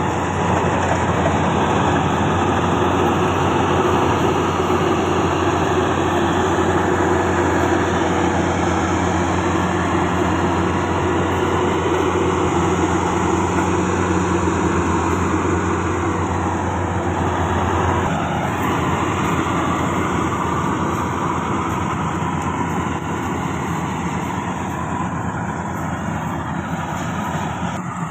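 Combine harvester engine running steadily, with a low hum that drops out about two thirds of the way through.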